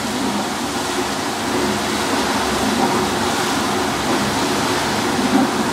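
Steady rushing rattle of fried fryum snack sticks tumbling in a rotating stainless-steel flavouring drum, the stage where the masala coating is mixed onto the batch.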